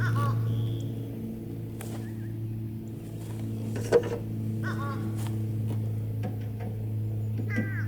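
A steady low mechanical hum with several even overtones, a bird calling a few times (at the start, about four and a half seconds in and near the end), and a single sharp click about four seconds in.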